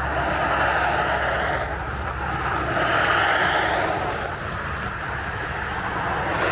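Strong wind blowing over the microphone in gusts, a steady rushing noise with a low rumble beneath that swells and eases every second or two.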